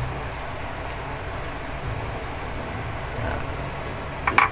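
Pot of chicken simmering on the stove with a steady low rumble. A few sharp clinks come just before the end.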